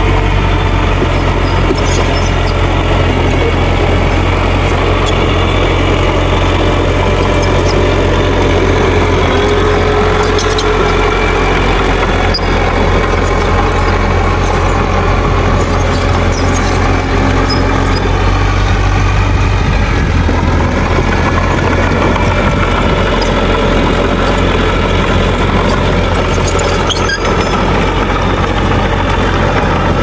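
Small crawler bulldozer's diesel engine running steadily under load as it pushes soil and rubble, with a few sharp clanks.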